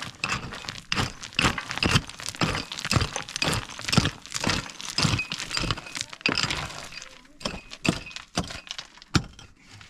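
A dense, irregular clatter of sharp knocks and clinks, several a second, from hard objects striking one another.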